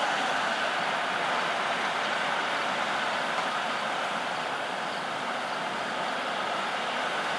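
Large harvest machinery running in the field: a steady, even mechanical drone with no change in pace.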